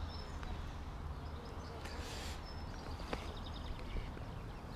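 Outdoor ambience: a steady low rumble with faint, high bird chirps in short runs, a brief hiss about two seconds in, and a couple of soft clicks.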